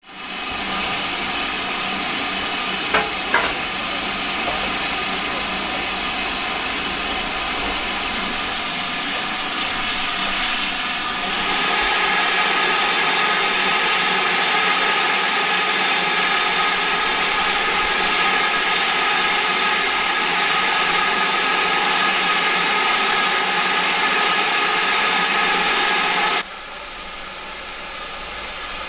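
GWR Manor-class 4-6-0 steam locomotive 7802 standing at the platform, hissing steadily with escaping steam. The hiss changes character about twelve seconds in and drops sharply near the end; two short knocks come about three seconds in.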